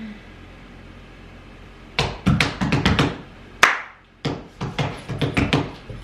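A rapid flurry of sharp taps and knocks on a hard surface, several a second in quick clusters, starting about two seconds in.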